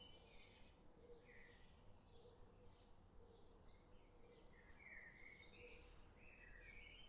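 Faint birds chirping: many short, quick calls one after another over a soft background hiss, from a stock nature-ambience recording.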